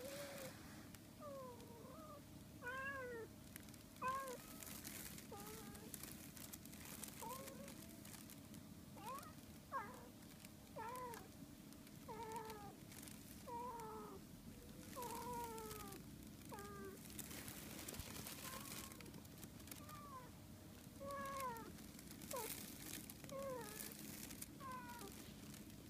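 Siamese cat meowing over and over: short, arched meows roughly once a second.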